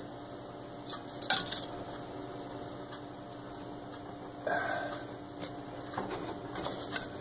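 Metal utensils clinking and knocking against a cast iron Dutch oven and a ceramic plate as a baked loaf is lifted out and set down: a few scattered knocks, the loudest about four and a half seconds in with a brief ring, over a steady low hum.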